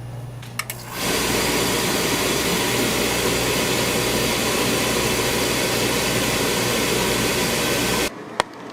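Oil-fired furnace burner switching on about a second in and running with a steady, loud rushing hum of motor and blower, the first run after its copper oil line has been replaced and bled. It cuts off suddenly near the end.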